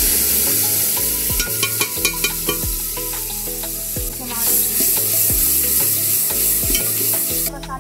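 Ground masala paste sizzling as it fries in hot oil in a metal pot, stirred with a spoon. The sizzle eases somewhat after the first second and swells again about four seconds in, dropping off just before the end.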